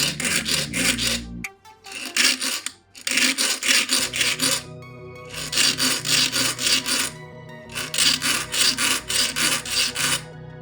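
Hand filing: quick back-and-forth rasping strokes in several runs of one to two seconds each, with short pauses between them, over background music.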